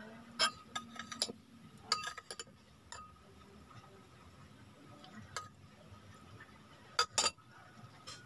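Metal spoon clinking against a ceramic bowl in a series of sharp separate clicks, a cluster in the first couple of seconds and a louder pair about seven seconds in as the spoon is set back in the bowl.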